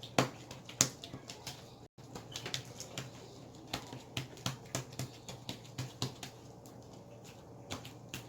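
Slime being squeezed, stretched and poked by hand, making irregular sharp clicks and small pops a few times a second. The sound drops out completely for an instant about two seconds in.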